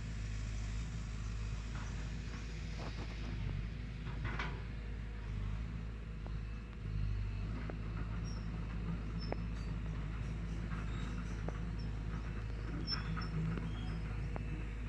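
Forest ambience: scattered short, high bird chirps, more of them in the second half, over a steady low rumble and a few faint clicks.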